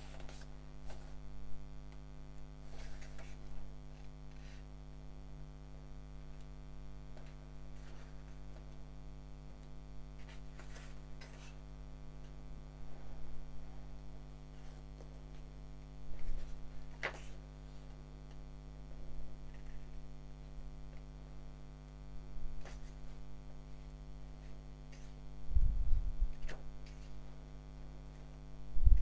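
Steady electrical mains hum with many overtones, with scattered soft rustles and handling noises of a paperback manga's pages being turned by hand; a louder handling thump comes a few seconds before the end.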